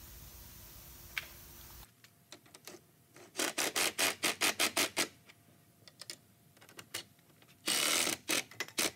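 Ryobi cordless drill driving screws through a steel gate hinge into wood. It comes in a run of short quick pulses about five a second, then a longer steady run near the end. A steady low hum is all there is for the first couple of seconds.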